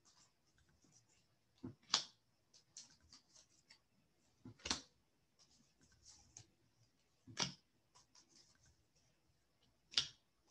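Cards being dealt one at a time onto a cloth-covered table: four sharp snaps, roughly two and a half seconds apart, with softer rustles of the deck between.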